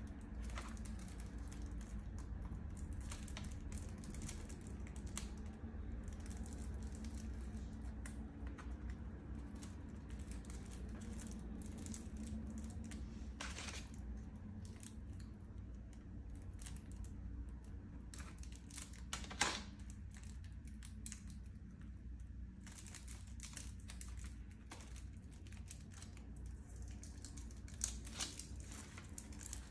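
Plastic CD jewel cases being handled and unwrapped: faint crinkling and small plastic clicks and taps, with a sharper click a little past halfway and another near the end, over a steady low hum.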